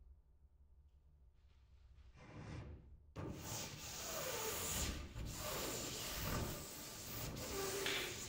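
Blue protective plastic film being peeled off a twin-wall polycarbonate panel: a brief faint rustle, then from about three seconds in a sudden, continuous rustling with a few squeaky notes.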